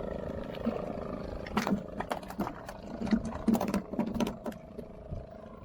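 Fishing boat's engine droning steadily, with a quick series of sharp knocks and thuds in the middle.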